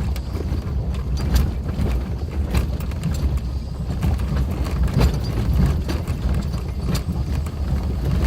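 Suzuki Jimny driving over a rough gravel forest track: a steady low rumble with irregular knocks and clatter from stones and the suspension.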